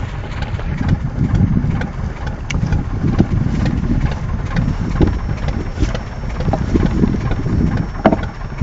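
A boat's engine running steadily, heard as a low rumble mixed with the rush of sea water along the hull.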